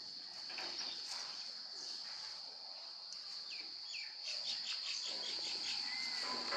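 A steady, high-pitched insect drone, with small birds chirping over it: a few short falling chirps about three and a half seconds in, then a quick run of repeated notes and a brief whistle near the end.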